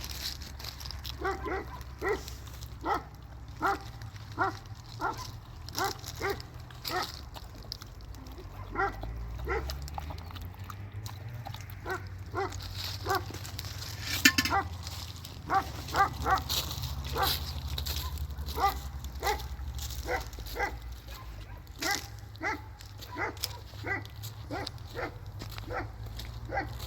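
A dog barking over and over, about two barks a second, over a steady low hum.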